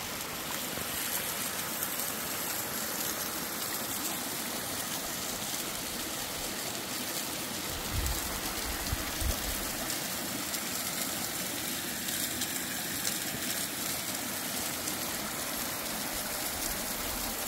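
Water of a small mountain waterfall rushing and trickling down over rocks, a steady rushing hiss. A few low bumps about eight to nine seconds in.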